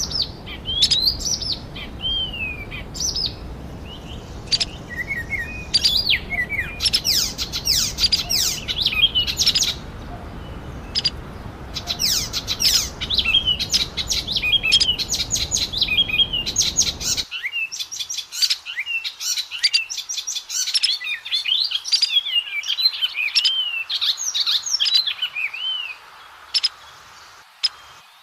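Oriental magpie-robin (kacer) singing a long, varied song of whistled phrases, quick up-and-down sweeps and chattering notes, ending in a rapid run of short sharp notes. A low background rumble under the song cuts off suddenly about two-thirds of the way through.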